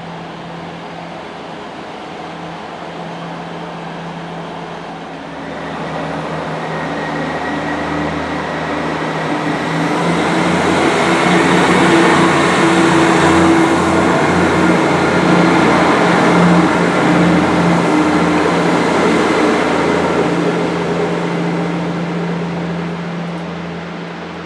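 A diesel train passing through the station: its engine and wheel noise swell from about five seconds in, stay loud through the middle and fade away near the end, over a steady low hum.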